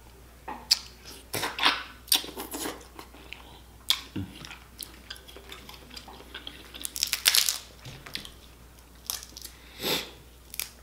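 Snow crab shells being cracked and pulled apart by hand, in short irregular crackles and snaps, with chewing between them. The loudest run of cracking comes about seven seconds in, with another sharp crack near the end.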